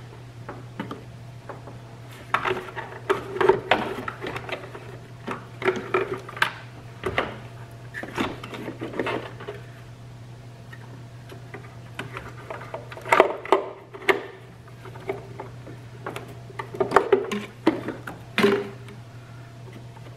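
Irregular clusters of knocks, clicks and rattles from a metal-cased engine control module and its bracket being handled and fitted against the plastic airbox, with a steady low hum underneath.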